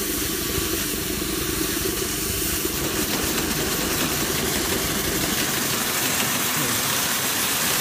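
Steam engine of a 1/8-scale Shay live-steam locomotive running on steam on a stand: a steady hiss of steam with a fast, even beat.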